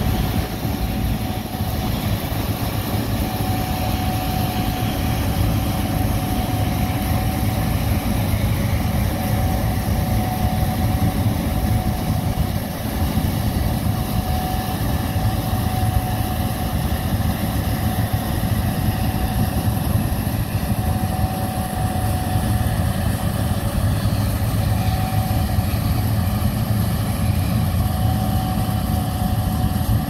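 Gleaner S67 combine harvester running steadily under load while harvesting soybeans: a low engine drone with a steady whine above it and a constant machinery rush.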